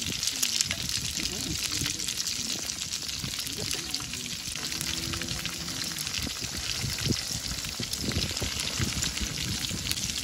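Chicken 65 pieces deep-frying in hot oil in a steel kadai, a steady, dense sizzle, with a wire skimmer stirring through the oil in the later part.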